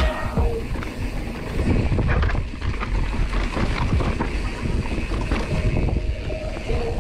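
Wind rumbling on the microphone over the noise of a mountain bike rolling down a dirt trail, with frequent short knocks and rattles as it runs over bumps.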